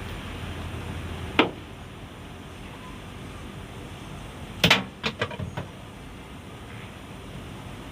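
A sharp knock about a second and a half in, then a louder bang near the five-second mark followed by a few quick rattling clicks, over a steady low background noise.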